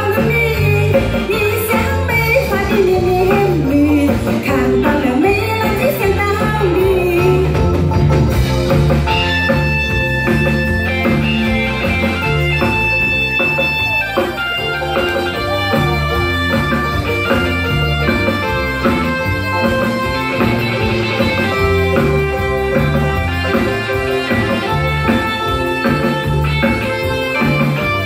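Live band playing an instrumental passage between sung verses: a guitar lead over a repeating bass line and drum kit. Bending notes in the first several seconds settle into held, steady notes from about nine seconds in.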